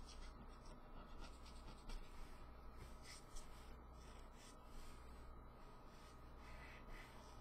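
Copic marker nib rubbing over paper in short, faint, irregular strokes while shading in colour.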